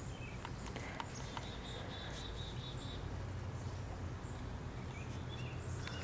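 Outdoor ambience: a bird chirping, including a quick trill of about six repeated notes a second or so in, over a steady low hum, with scattered small clicks and rustles.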